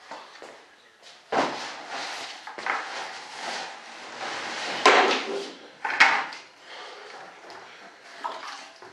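Hand sanding of a primer guide-coated composite model-jet wing: irregular rasping sanding strokes, with a few sharp knocks, the loudest about five seconds in.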